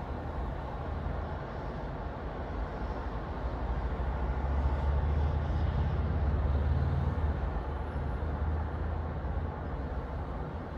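Steady low rumbling background noise with no distinct events. It swells for a few seconds in the middle, then eases back.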